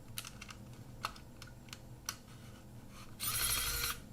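A screwdriver probing inside a half-frame film camera's body: a few small clicks and taps, then a scraping rattle lasting under a second near the end.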